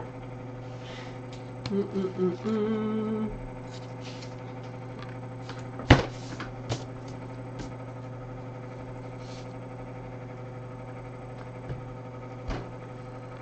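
Steady low electrical hum, with a short hummed phrase of a few notes about two seconds in. A sharp knock about six seconds in, a smaller one just after, and another near the end.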